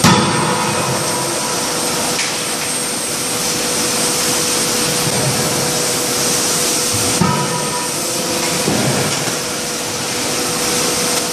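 Forging shop noise: a steady loud hiss and machine hum, with two heavy blows of a forging machine on hot steel, one right at the start and one about seven seconds in, each followed by a brief metallic ring.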